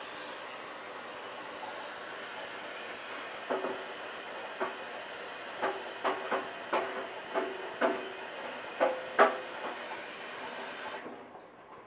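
A steady high-pitched hiss that cuts off near the end, with a string of light knocks and taps from about three and a half seconds in.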